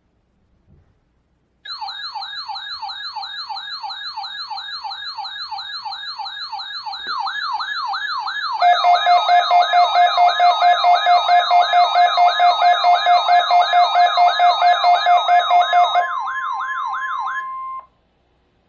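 Weather alert radio sounding its electronic siren alarm, a rapid repeating rising whoop about three times a second, for a NOAA Weather Radio weekly test. About seven seconds in, a steady warning alarm tone and a loud pulsing lower tone join it. All of it cuts off suddenly near the end.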